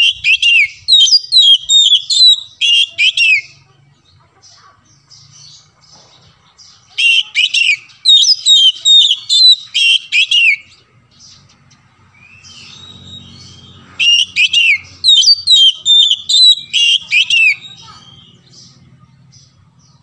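Oriental magpie-robin singing loud, rapid whistled phrases in three bursts of about three seconds each, with pauses between.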